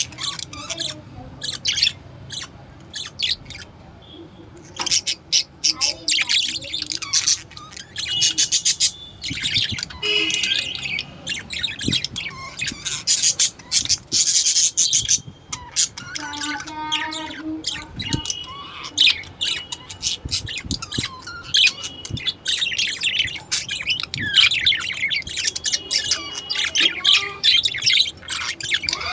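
Budgerigars chirping and warbling in a busy, continuous chatter of quick, high chirps.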